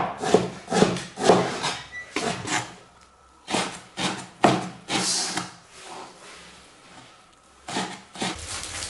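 Cleaver slicing pickled Napa cabbage (suancai) into fine shreds on a wooden cutting board: irregular knocks of the blade on the board, about two a second, with a pause of about a second and a half after six seconds.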